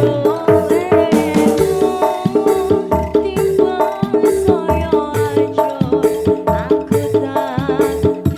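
Live band music over a sound system: a brisk, steady drum rhythm with a wavering melody line above it.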